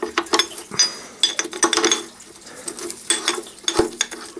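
Irregular metallic clinking and rattling: a steel tube wrench being turned and knocking against a steel suspension bracket as its loosened fixing is undone, with a faint steady hum underneath.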